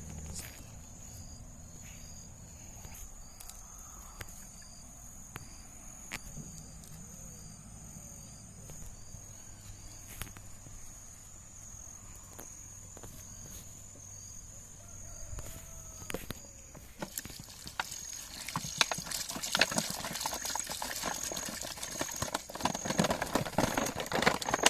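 A steady high insect buzz with a short chirp repeating at even spacing. From about two-thirds of the way through, a dense run of clicks and knocks, like handling or rustling close to the microphone.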